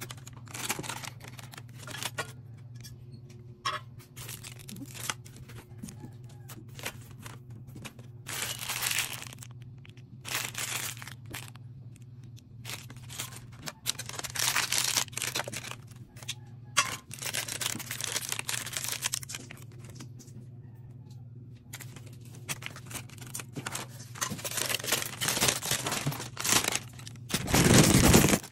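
Packaging being torn and crinkled by hand in irregular bursts, with a loud rip near the end, over a steady low hum.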